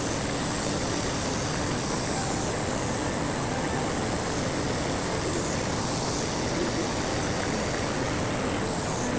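Waterfall and mountain stream rushing steadily, a grand water sound that the speaker puts down to rain a few days earlier, with a steady high hiss running above it.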